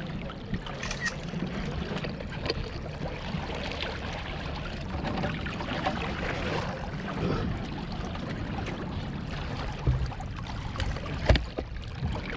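A small fishing boat on the river: water moving against the hull over a low, steady rumble, with two sharp knocks near the end.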